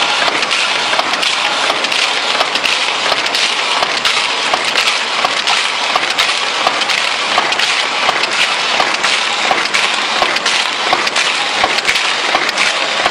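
Automatic cartoning machine running: a dense, steady clatter of many rapid, irregular clicks over a constant hiss.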